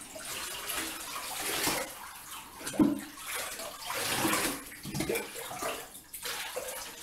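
Water poured from a cup over a small dog standing in a shallow bathtub, splashing into the bathwater in a few separate pours.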